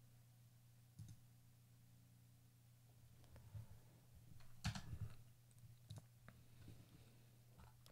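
Near silence with a low steady hum, broken by a few faint computer clicks, a small cluster of them about five seconds in.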